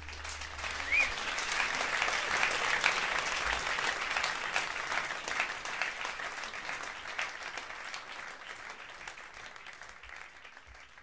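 Audience applauding. The clapping builds over the first two seconds, then slowly dies away.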